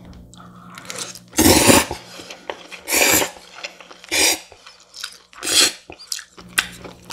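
Loud slurping of bibim-naengmyeon (spicy cold noodles) four times, a little over a second apart, with soft chewing and mouth clicks between the slurps.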